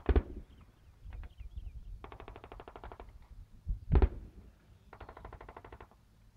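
Distant automatic gunfire: two rapid bursts of about a second each. Two louder single bangs come between them, one at the start and one about four seconds in.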